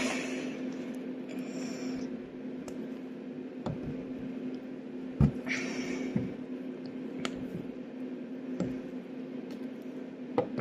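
Fingers breaking and crumbling a sandy toy treasure-dig block: scattered small ticks and taps of crumbs falling, a couple of brief gritty rustles and a few soft thuds, over a steady low hum.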